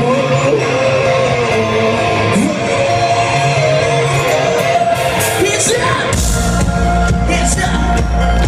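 Live band playing loudly in a concert hall, a singer's voice over guitar; about six seconds in, heavy bass comes back in under the music.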